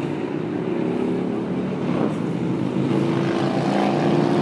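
Steady drone of a motor vehicle's engine and road noise while driving, a hum of several low tones holding even throughout.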